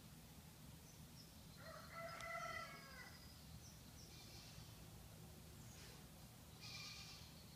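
Faint outdoor quiet with animal calls: one drawn-out, wavering call about two seconds in, then short, high calls around four seconds and again near the end.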